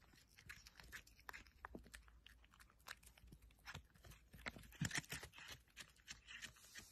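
Cat chewing and crunching a Churu Rolls treat stick: a run of faint, irregular crunches and clicks, a little louder about two-thirds of the way through.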